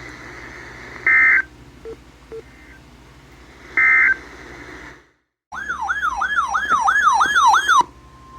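EAS data bursts: two short, shrill two-tone warbles over radio hiss, the end-of-message code that closes the previous alert. After a brief silence comes a loud siren-like yelp that falls in pitch about three to four times a second, then a steady single attention tone near 1 kHz, the alert signal that opens the next warning.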